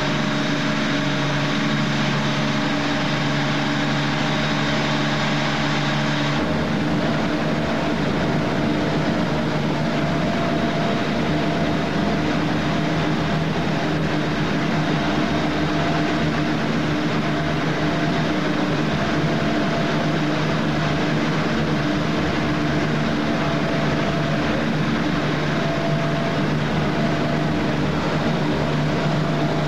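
Steady drone of a ship's engines heard from the deck, a constant low hum under a wash of noise, changing slightly about six seconds in.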